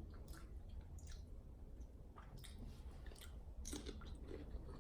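Faint close-up chewing of food, with soft wet clicks and squishes every half second or so.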